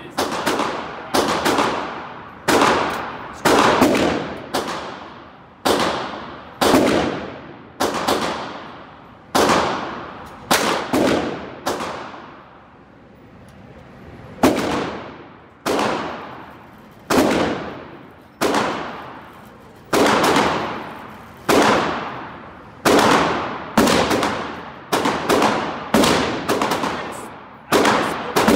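Gunshots in an indoor shooting range: a steady string of sharp reports, roughly one a second, each ringing off in the range's echo, with a pause of a couple of seconds near the middle.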